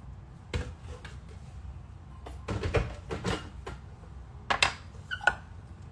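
Kitchen containers and utensils handled with a scatter of clatters and knocks, a quick run of them near the middle and two sharp knocks near the end.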